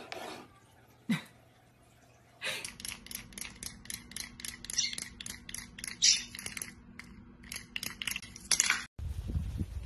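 Clockwork of a small wind-up toy donkey clicking rapidly and evenly over a faint steady hum as it walks across a wooden floor, stopping suddenly near the end. A single sharp knock comes about a second in.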